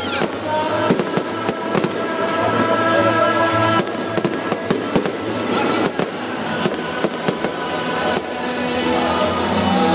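Aerial fireworks going off in a dense, rapid string of bangs and crackles, with music playing under them.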